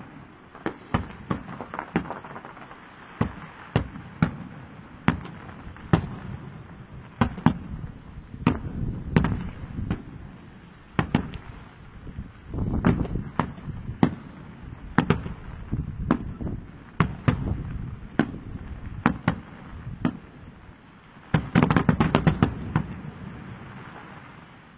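Aerial firework shells bursting in a steady string of sharp bangs, about one a second, with a rapid volley of many bangs near the end that then fades away.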